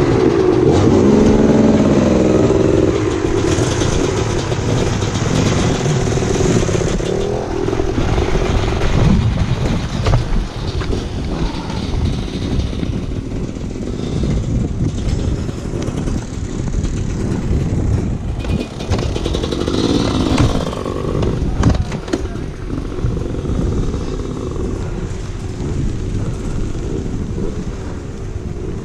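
Enduro dirt bike engine running on a trail, revving up and easing off, with a rise in pitch in the first few seconds and again around twenty seconds in. Under it runs a steady noisy rumble with many small knocks.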